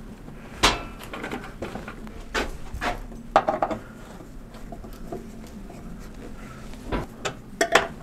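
Hands fitting parts back onto a motorcycle's dash and tank console: scattered metal clinks and knocks, a few at a time, with quieter handling noise between them and a quick cluster near the end.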